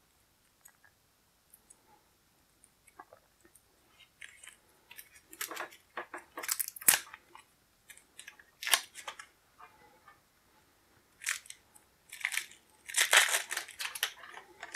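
Cellophane shrink wrap being torn and crinkled off a deck of game cards, in irregular crackly bursts with a few sharp snaps, loudest around six to seven seconds in and again near the end.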